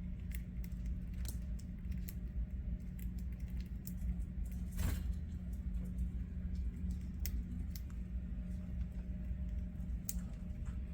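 A steady low hum with scattered faint clicks and taps, one sharper click about five seconds in; no bird calls.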